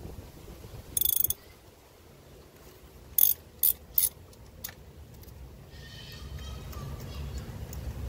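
Ratchet wrench clicking as it is worked on an extension in a spark plug well: a quick run of clicks about a second in, then three sharp clicks between three and four seconds in.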